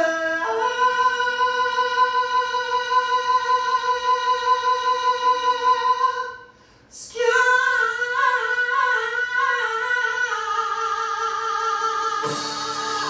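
Live musical-theatre singing: one long held note of about six seconds, then a short break, then a wavering sung line that settles into another held note. A band comes in near the end.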